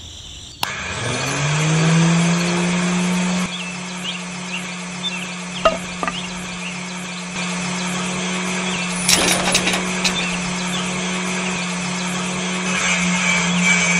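Small electric motor of a miniature homemade table saw switched on about half a second in, its whine rising quickly as it spins up and then running steadily. A few light clicks and knocks come midway, and near the end the sound turns rougher as a green plant stem is fed into the small circular blade.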